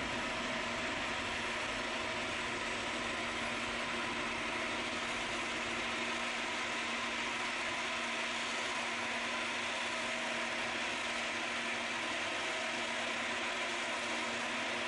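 Steady jet engine noise from airliners taxiing on the airfield: a continuous even hiss with a low steady hum under it.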